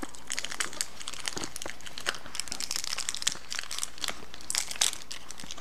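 Candy-bar wrappers crinkling as two people unwrap them by hand: a steady run of small, irregular crackles.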